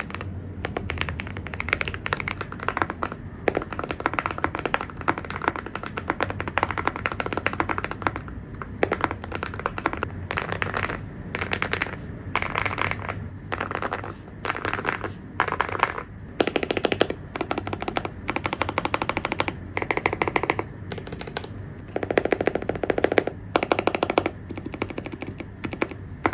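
Fast typing on a mechanical keyboard fitted with ceramic keycaps: dense, clacky keystrokes. They run continuously for about the first eight seconds, then come in bursts with brief pauses between them.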